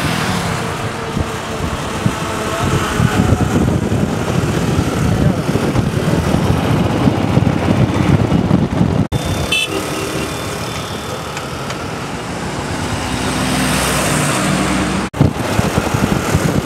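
Riding a motorbike in road traffic: a small two-wheeler engine and road noise with wind on the microphone. A short horn-like beep sounds about nine and a half seconds in, and the sound cuts out very briefly twice.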